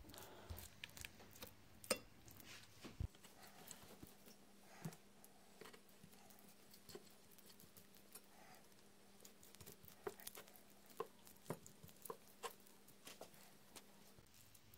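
Faint, irregular taps and clicks of a silicone basting brush dabbing thick spiced marinade onto raw chicken legs on a ceramic plate.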